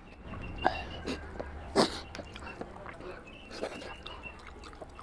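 Close-miked eating sounds of a man chewing mutton head curry eaten by hand, with wet lip smacks and a few sharp clicks, the loudest about two seconds in.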